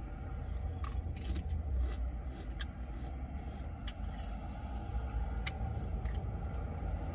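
Chewing a Pringles Scorchin' BBQ potato crisp: a dozen or so short, irregular crunches spread over several seconds, over a low steady rumble.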